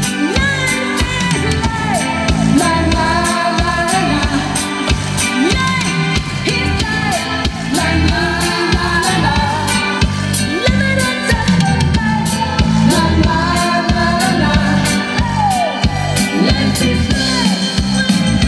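Live rock band playing: a woman singing over electric guitar and a Sonor drum kit keeping a steady beat of about two strokes a second.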